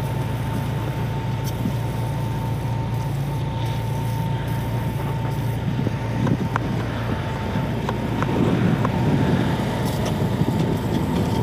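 Jeep Wrangler engine idling steadily close by, a low hum with a thin steady higher tone over it. A few light clicks sound in the second half.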